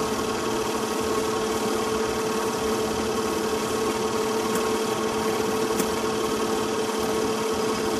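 Film projector motor running with a steady whir and hum that holds one pitch throughout.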